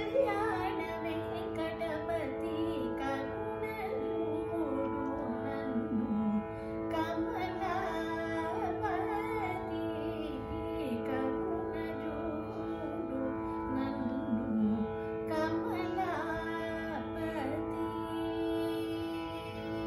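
A woman singing Carnatic music in raga Kalyani, her voice sliding and oscillating between notes, over a steady tanpura drone.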